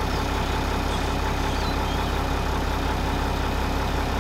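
A vehicle's engine idling steadily, with a few faint bird chirps in the first half.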